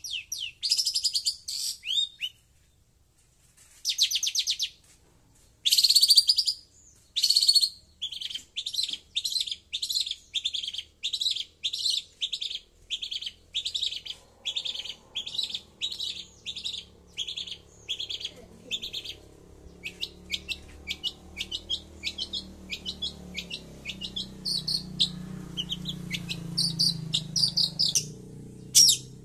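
Long-tailed shrike (cendet) calling: repeated high chirps, first in dense runs with a short pause near the start, then evenly about twice a second, then in quicker runs near the end. A faint low rumble rises in the background in the second half.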